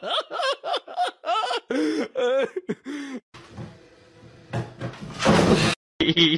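A dog yelping and whining in quick, pitch-bending calls for about three seconds, then a short loud burst of noise about five seconds in.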